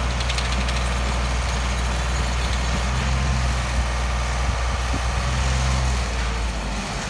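Heavy diesel construction machinery running steadily, a deep low drone with engine noise over it, which drops away about six and a half seconds in.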